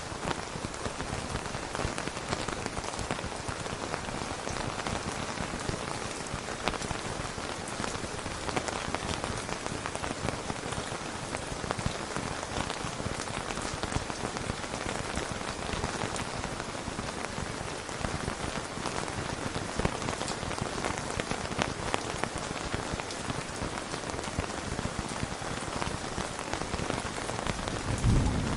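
Steady rain falling on a tent, an even hiss of rain dotted with many separate drop ticks. A low rumble begins near the end.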